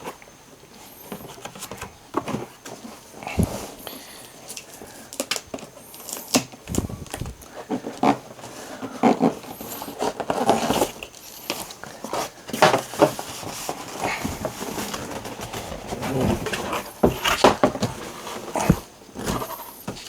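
Cardboard box being opened and its contents handled: irregular rustling of cardboard and packaging, broken by sharp clicks and knocks that come closer together in the second half.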